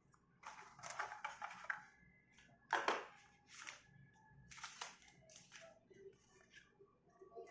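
Hands handling a smartphone's packaging: scattered rustling and crinkling of wrapping, with a sharp crackle about three seconds in and a few shorter ones after.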